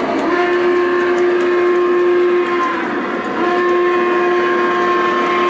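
Steam whistle from the onboard Legacy sound system of a Lionel O-gauge C&O 4-8-4 Greenbrier locomotive, sounded in two long blasts with a short break about halfway through. A steady running noise of the model train on the track lies underneath.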